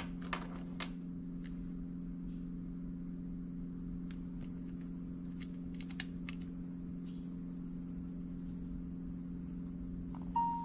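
Light clicks and taps from handling a fiberscope and the phone showing its picture, over a steady low hum and a high hiss; a short beep near the end.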